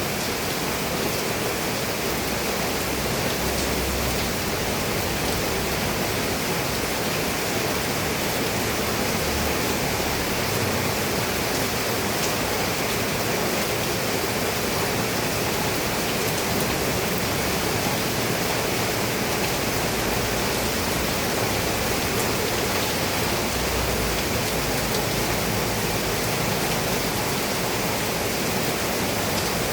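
Steady rain falling on a roof, an even, unbroken hiss.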